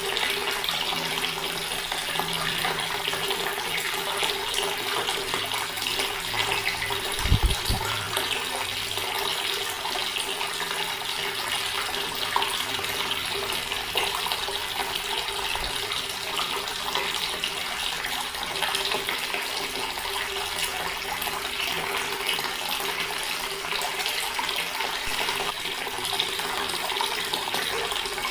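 Water running steadily from a tap in a continuous stream, with a brief low thump about seven seconds in.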